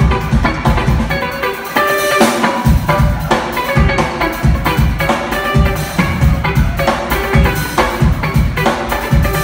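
Jazz-fusion band playing live: electric guitar over drum kit and bass, heard from the audience in a concert hall. The bass and kick drum drop out for under a second about two seconds in, then the full band comes back in.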